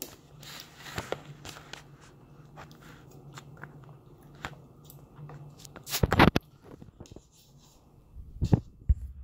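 A toddler eating with her fingers: chewing and mouth sounds with small clicks and taps. There are two louder knocks, about six seconds in and again near the end.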